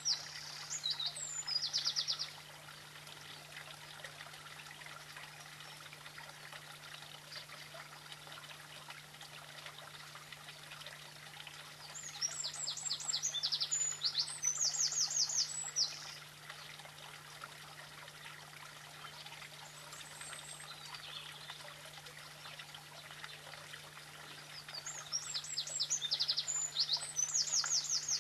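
A small songbird singing: bouts of rapid, high-pitched trilled notes, each a few seconds long, at the start, about twelve seconds in and near the end. A steady low hum and a faint hiss run underneath.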